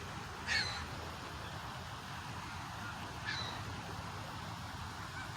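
Canada geese honking, two short calls about half a second and three seconds in, over a steady background hiss.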